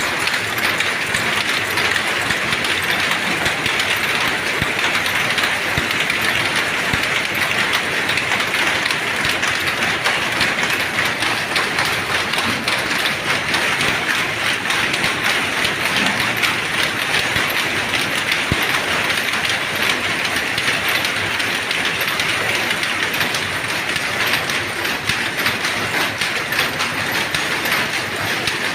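Dobby power looms weaving terry towel, making a loud, dense, steady mechanical clatter that does not let up.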